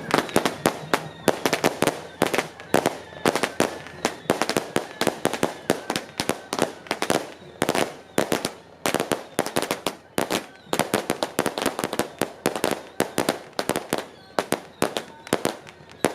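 Strings of firecrackers going off, a rapid uneven stream of sharp bangs, several a second.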